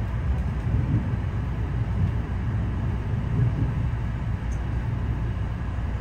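Steady low rumble of a moving local train.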